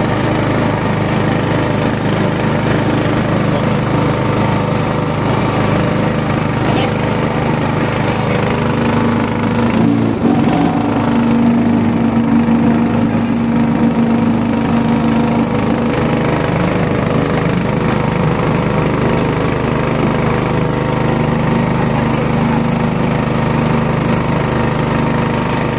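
An engine running steadily, its tone shifting briefly about ten seconds in.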